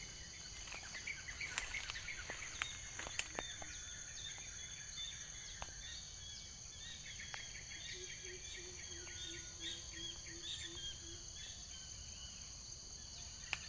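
Rural tropical ambience: a steady high insect drone with repeated bird chirps, and about ten evenly spaced low hooting bird notes over some three seconds past the middle. A few sharp snaps and rustles of footsteps in undergrowth come in the first few seconds.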